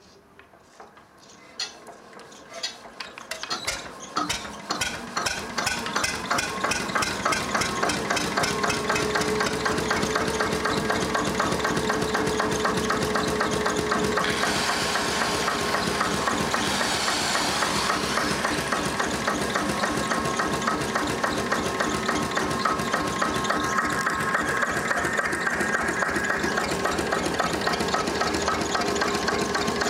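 Slavia D12 12 hp single-cylinder diesel stationary engine being hand-cranked: a few slow cranking clicks, then it fires, and its knocks speed up into a steady, rhythmic run driving a 380 V generator. About halfway through, an angle grinder run off the generator whirs for a few seconds over the engine.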